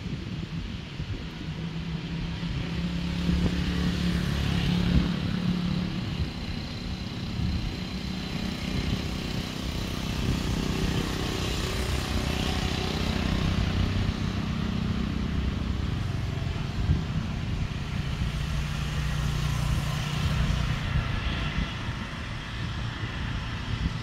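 Motor vehicle engines running low and steady, swelling and fading several times as traffic passes.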